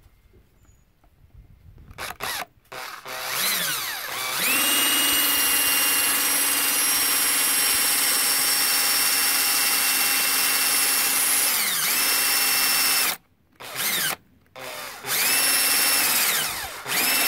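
Electric drill spinning a quarter-inch paddle bit through a plastic motorcycle fender: a couple of short blips, then the motor winds up to a steady whine for about seven seconds, slows, and starts and stops a few more times. The bit melts the plastic a little instead of scraping through it, which the owner puts down to the bit getting dull.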